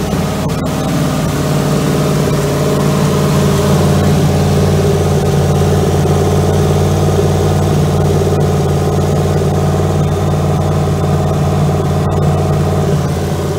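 Oldsmobile Jetfire 215 cubic-inch aluminum V8 running steadily at fast idle on a run stand, with a constant low engine drone. The engine is warmed up during its cam break-in run.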